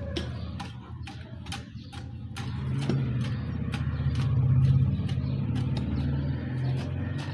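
Low engine or motor hum that swells louder around the middle and then eases off, with scattered sharp clicks or taps over it.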